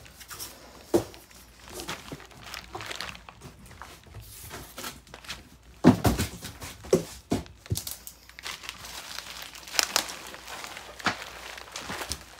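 Bubble wrap and cardboard packing being handled as a heavy, bubble-wrapped receiver is worked out of its shipping box: crinkling and rustling broken by several sharp knocks, the loudest about six seconds in.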